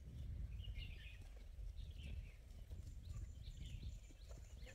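Wind buffeting the microphone as a low rumble, with small birds chirping a few times.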